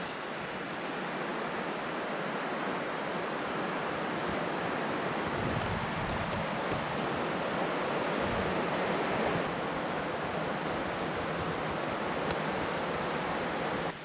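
Steady rain falling on a barn roof, heard from underneath as an even hiss.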